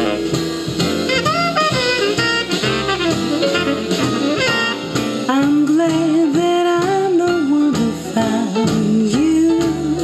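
Instrumental break in a vocal jazz swing record: a lead melody line over walking bass and drums, played back through a JBL Paragon stereo loudspeaker.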